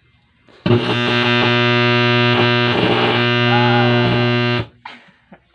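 Power amplifier humming loudly through its speaker: a steady, buzzy mains hum that starts suddenly about a second in and cuts off abruptly about a second before the end. This kind of hum is typical of failing main filter capacitors or power transistors.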